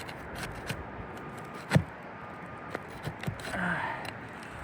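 Scattered clicks and knocks of hand work on asphalt roof shingles while prying them up to get at the nails, with one sharp knock about two seconds in.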